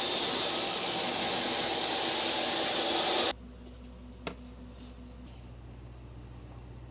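DEWALT 10-inch table saw running and cutting through a plywood panel: a steady noise with a thin high whine over it. It cuts off abruptly a little over three seconds in, leaving a low hum and a single light knock about a second later.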